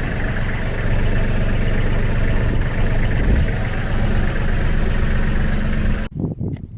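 An engine running steadily at idle, with strong low rumble, cut off abruptly about six seconds in, followed by a few light clicks.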